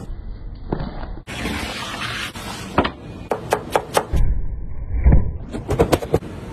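A knife chopping fresh parsley on a plastic cutting board: quick runs of sharp chopping knocks, about four a second, in two stretches.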